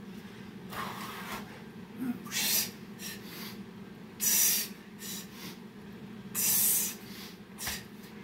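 A man breathing hard from burpees, with forceful huffing breaths roughly every two seconds. The loudest breaths come near the middle and toward the end, over a steady low hum.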